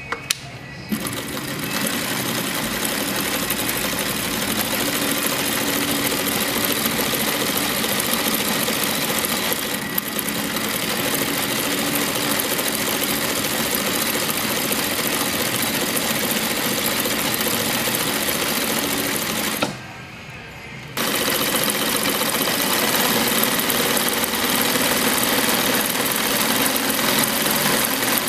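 Atlas AT2284 industrial three-step zigzag sewing machine running at speed, stitching zigzag seams through fabric. It stops for about a second around two-thirds through, then runs again.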